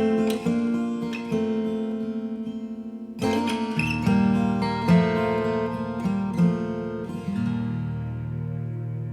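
Background acoustic guitar music: picked notes over ringing chords, with a fuller chord coming in about three seconds in.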